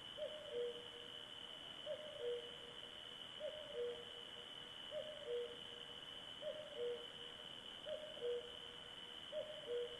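A night animal's two-note call, a higher note followed by a lower one, repeated steadily about every one and a half seconds, seven times, over a thin steady high-pitched whine.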